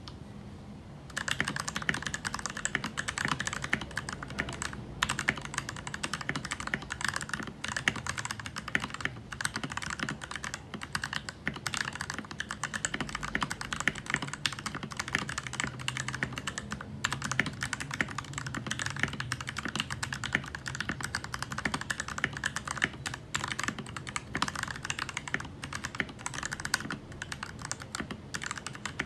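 Typing on a mechanical keyboard fitted with Durock T1 tactile switches: a steady, fast run of key clicks that starts about a second in.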